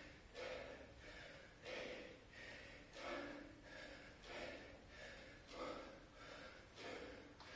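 A man breathing hard and rhythmically from exertion during a set of bodyweight squats, one heavy breath about every second and a quarter.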